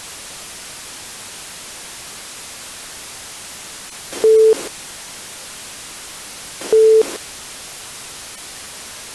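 Steady static hiss on an emergency broadcast feed during a stand-by pause, broken by two short, single-pitched beeps about two and a half seconds apart.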